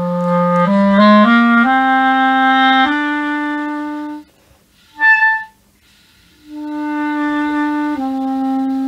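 Clarinet played with a newly fitted reed. It holds a low note, runs quickly up through a few short notes, then holds longer notes; there is a short high note about five seconds in, then two more held notes near the end.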